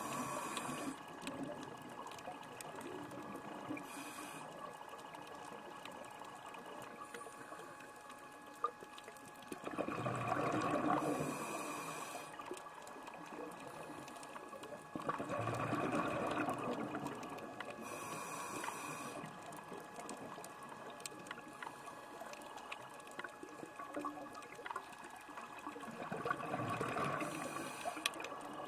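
Underwater recording of a scuba diver breathing through a regulator: swells of exhaled bubbles rushing every several seconds, with short high hisses of inhalation between them.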